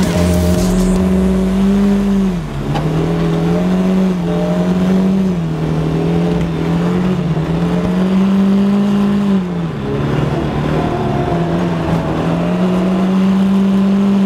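Old Ford's 2-litre Pinto four-cylinder engine heard from inside the cabin, held at high revs while drifting on ice. The revs drop briefly a couple of times as the throttle lifts, then climb back up.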